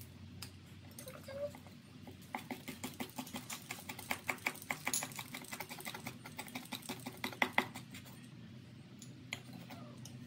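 Steel cleaver rapidly slicing a rolled bundle of green leaves on a wooden chopping board: a quick run of knocks, about five a second, starting about two seconds in and lasting some five seconds.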